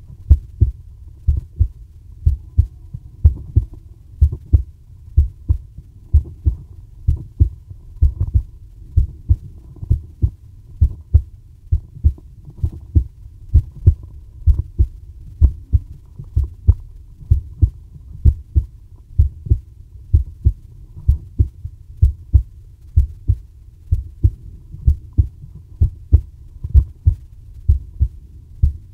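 Recorded human heartbeat: a steady run of low, dull thumps, a little over one beat a second.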